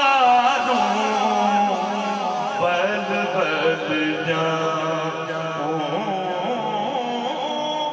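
A man singing a naat into a microphone: long, wavering, ornamented vocal lines held without a break.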